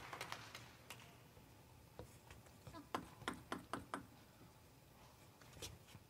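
Quiet hall with light, sharp clicks: a single one about a second in, an uneven run of them from about two to four seconds in, and one more near the end.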